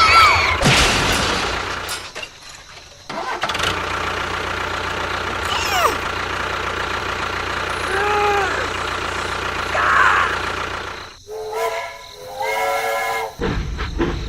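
An engine running steadily, which drops out briefly twice. Short rising and falling tones sound over it, and near the end a pitched, voice-like sound lasts about a second and a half.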